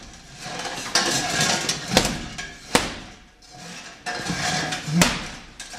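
Boxing gloves punching a swinging hanging punching bag: sharp thuds about two seconds in, again under a second later, and once more near the end.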